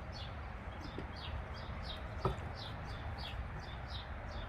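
A songbird chirping over and over, short high notes that slide downward, about three a second. Under it runs a low rumble, and a single sharp click sounds a little past two seconds in.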